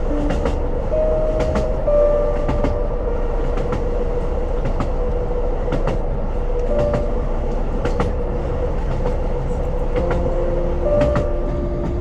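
A train running, heard from on board: a steady rumble with a few held tones, and the wheels clicking in close pairs over rail joints every second or few.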